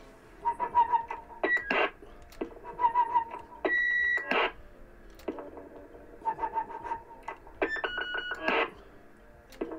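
Three electronic roger beeps from a 150-tone beep board fitted in a CB echo chamber, each one different: a warbling tone, then a short run of higher steady or stepped beeps ending in a burst of hiss, about every three seconds.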